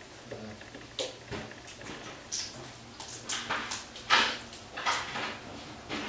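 Soft, irregular clicks and rustles of an African grey parrot picking seeds off a hardwood floor.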